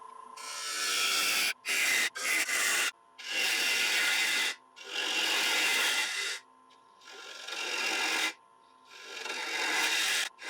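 A turning tool cutting into Iroko on a running wood lathe, hollowing the inside of a bowl. There are about seven passes of roughly a second each, with short gaps between them where the lathe's faint hum carries on.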